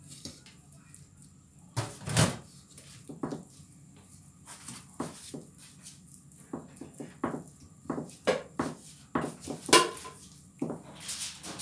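Irregular soft knocks and taps as raw chicken pieces are handled and pressed into flour on a plate, with occasional sharper clinks against the plate.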